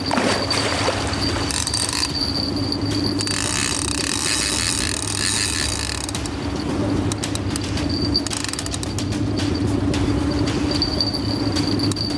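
Baitcasting fishing reel clicking and ratcheting while a hooked wels catfish fights against the rod, over a steady low hum. A rushing hiss comes in about three seconds in and lasts some three seconds, and a run of quick clicks follows.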